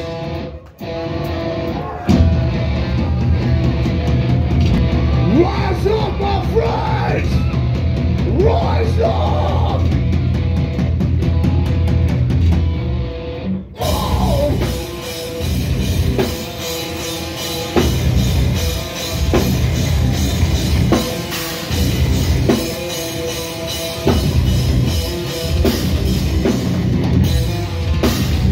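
Metal band playing live and loud: distorted guitars, bass guitar and a pounding drum kit, with vocals over the top. The music drops briefly just after the start and comes in full about two seconds in.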